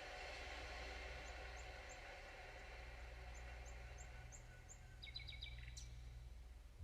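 Sound of Soul device playing music generated from a heartbeat: a nature soundscape of short bird-like chirps, about three a second, over a fading wash of sustained tones and wave-like noise, with a steady low hum beneath. A quick cluster of chirps comes about five seconds in.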